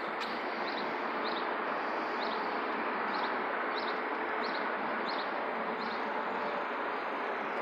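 Steady outdoor background noise with a small bird chirping over it, short high chirps about once or twice a second.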